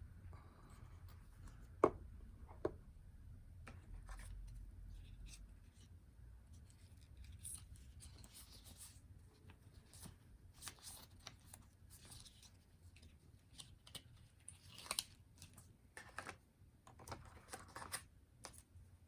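Handling of the phone's packaging: two sharp clicks near the start, then a run of irregular scraping, cutting and tearing sounds as the box wrapping is opened.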